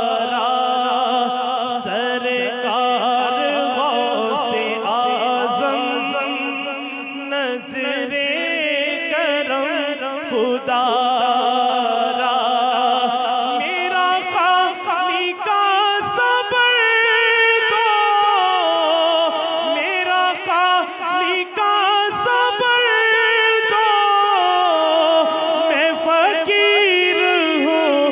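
Man singing a naat into a handheld microphone, amplified. He draws out long, wavering melodic phrases in which few words can be picked out.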